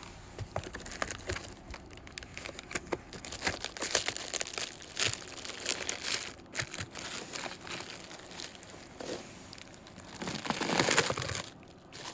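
Packaging crinkling and rustling in irregular crackles as a wrapped package is worked and slid out of its shipping container, swelling louder a little before the end.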